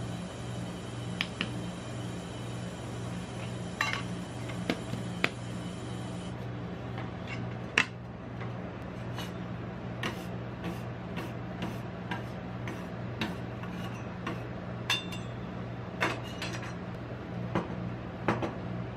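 Metal spatulas and a spoon clicking and tapping on the steel cold plate of a rolled ice cream machine, over a steady low hum from the machine. A few scattered clicks come in the first half, then a run of quick taps later on.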